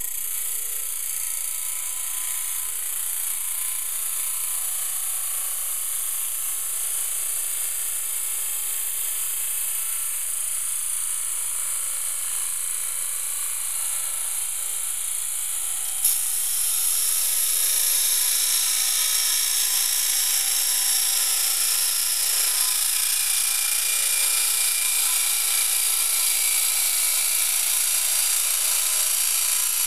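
Belt sander running steadily as steel is ground on the abrasive belt, a continuous hiss. There is an abrupt jump about halfway through, after which it runs louder.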